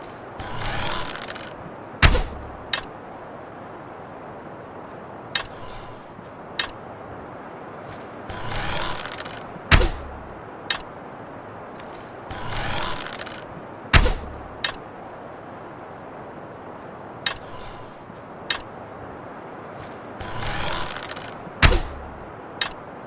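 Bow and arrow sound effects: a swish of about a second followed by a sharp hit, repeated four times, with lighter clicks between the cycles.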